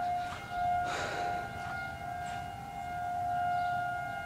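Federal 2001 outdoor warning siren sounding a steady, trumpet-like single tone for a tornado warning. Its loudness swells and fades slowly as the siren rotates.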